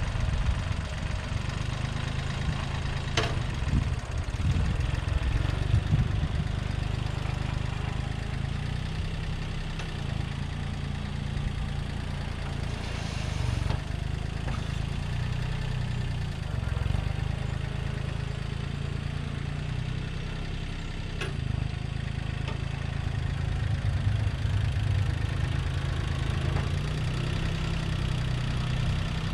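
International 234 compact tractor's small diesel engine running steadily while the tractor drives and works its front loader, its note rising and falling a little with the work.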